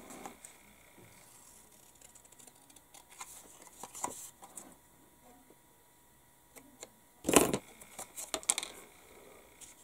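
Small handling noises at a modeling bench: a paper decal sheet rustling and light clicks from tools, with a louder rustle about seven seconds in followed by a few quick clicks.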